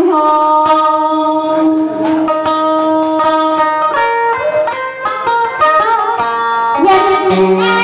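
Guitar playing a Vietnamese đờn ca tài tử melody with long held notes that slide and step from pitch to pitch.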